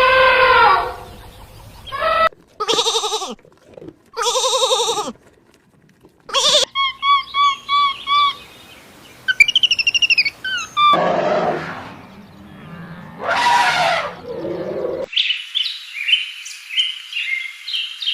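A series of animal calls cut one after another: a few drawn-out, wavering bleat-like calls, then runs of short repeated bird chirps.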